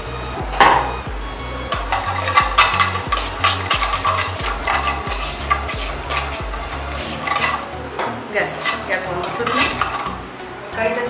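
A metal spoon stirring and scraping in a kadai, in many quick strokes, as a tadka of hot ghee, chilli powder and whole cumin and coriander seeds sizzles.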